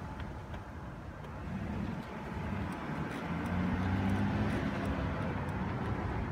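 A motor vehicle's engine running with a low, steady hum that grows louder from about a second and a half in, then holds steady.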